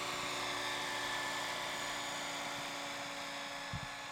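RC scale model helicopter, an Eurocopter AS355 body on a Century Falcon frame, in flight: a steady high-pitched whine from its rotor and drive. A brief low thump near the end.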